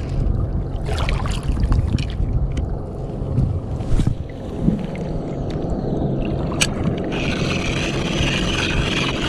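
A Daiwa Crossfire LT 1000 spinning reel being cranked on a retrieve, noisy from poor maintenance, over water lapping and wind on the microphone. A brighter hiss comes in about seven seconds in.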